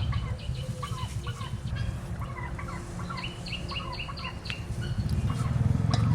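Birds calling with many short, quick chirps, over a steady low rumble.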